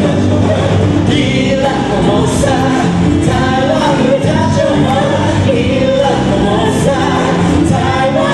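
A band playing a song, with voices singing over the music.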